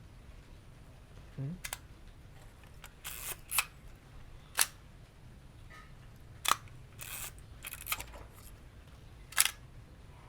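Zenit EM 35 mm SLR being fired and wound on bulb setting: sharp shutter-and-mirror clicks, about half a dozen, with short rasping film-advance winds between them. Bulb mode is faulty here: the mirror comes down prematurely.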